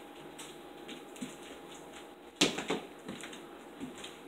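Metal fork clicking and scraping against a dinner plate, with a sharp cluster of clicks about two and a half seconds in and a few lighter taps around it.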